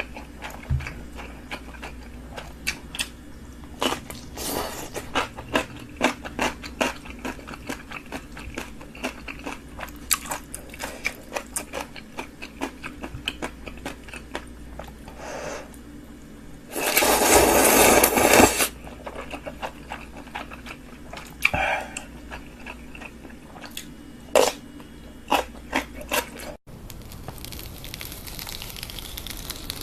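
Close-miked eating sounds: chewing, crunching and wet lip-smacking clicks, with a louder rush of noise lasting about a second and a half partway through.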